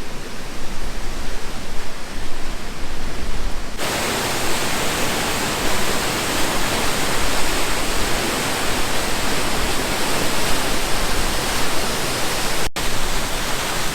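Plodda Falls waterfall rushing, a steady hiss of falling water. About four seconds in it gets suddenly brighter and fuller, and it cuts out for an instant near the end.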